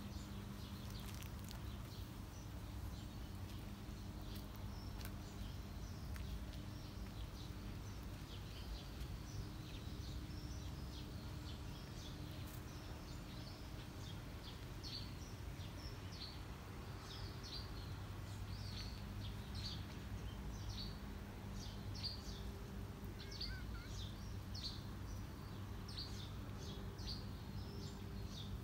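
Small birds chirping in many short, high calls, thicker in the second half, over a steady low hum of outdoor background noise.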